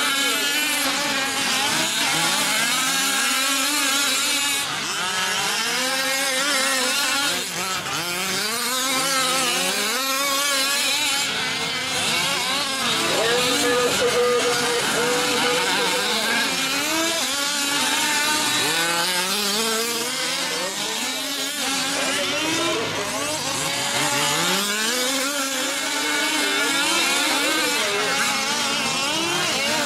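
Several 1/5-scale RC off-road trucks' small two-stroke petrol engines racing, their overlapping engine notes rising and falling in pitch as each accelerates and lets off.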